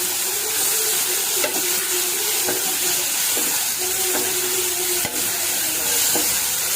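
Okra and tomato frying in oil in a kadai, sizzling steadily, with the taps and scrapes of a spoon stirring it a few times.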